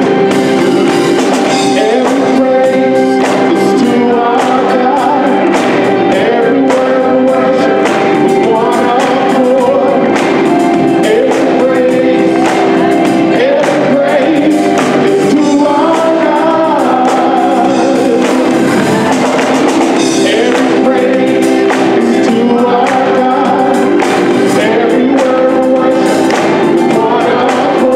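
Gospel choir singing together to live band accompaniment of drum kit, electric guitar and organ, over steady held organ chords.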